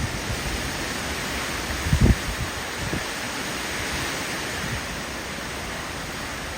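Strong thunderstorm wind rushing steadily, with low gusts buffeting the microphone, the loudest about two seconds in.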